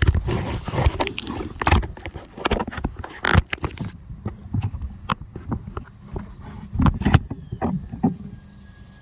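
Irregular knocks, clicks and rattles of hands handling things up close: thick and rapid for the first few seconds, then sparser.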